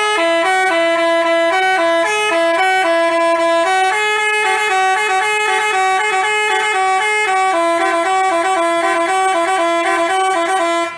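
Bus telolet musical horn (Basuri type) playing a quick tune of stepping notes sounded together in harmony, loud and steady, cutting off abruptly at the end.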